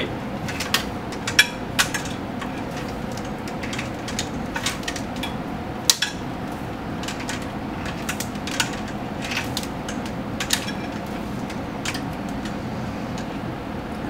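Plastic spiral cable wrap being wound around a bundle of wires and tubing: irregular light plastic clicks and rubs, the sharpest about six seconds in, over a steady hum.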